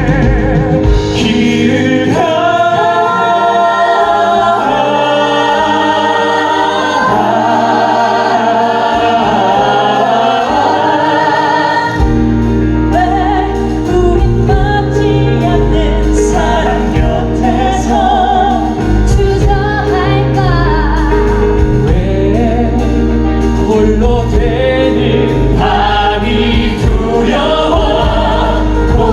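Live musical-theatre number: several voices singing together in harmony over a band accompaniment. A heavy bass line and fuller backing come in about twelve seconds in.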